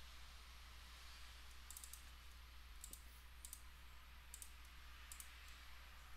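Computer mouse clicking: several sharp clicks, mostly in quick pairs, over a faint steady low hum.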